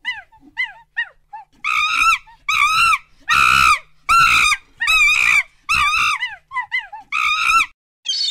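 Vervet monkey calling: a few short, high chirps that fall in pitch, then from about a second and a half in, a run of about ten louder, longer calls, each arching up and down in pitch, roughly one every half second.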